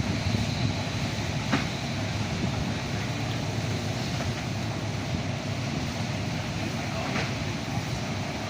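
Wind rumbling steadily over the microphone, with a couple of brief sharp snaps, one about a second and a half in and another later on.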